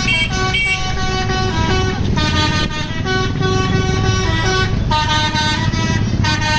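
Bus 'telolet' musical air horn playing a fast tune of short notes that step up and down in pitch, over a low rumble.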